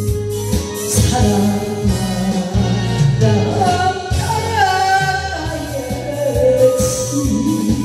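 A woman singing a Korean pop song into a handheld microphone over a backing track with a steady beat, holding a long sliding note about halfway through.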